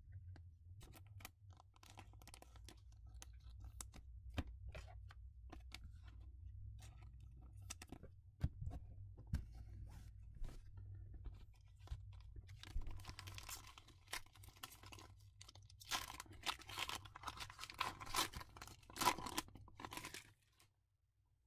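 Foil wrapper of a Panini Mosaic Euro trading-card pack being torn open and crinkled by hand, with the loudest crinkling bursts in the second half. Before that come soft clicks and light rustles of cards and a plastic sleeve being handled.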